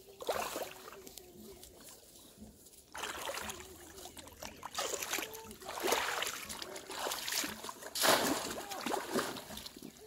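A person wading through shallow river water, with a run of separate splashing steps from about three seconds in.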